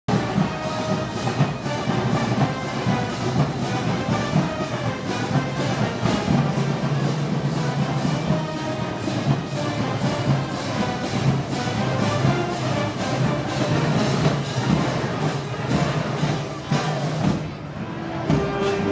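Brass band with drums playing festival music, the percussion keeping a steady, even beat. The drumming drops away briefly near the end.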